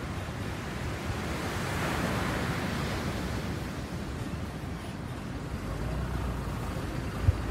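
Pacific surf: a wave breaks and washes in, swelling to its loudest about two seconds in and then easing off. A low rumble comes in near the end, with a short thump just before it ends.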